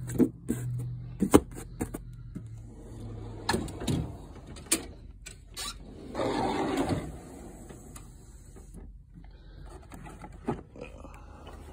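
Steel tool box drawers being shut and opened: a few sharp knocks and clunks in the first five seconds, then a drawer running on its slides for about a second.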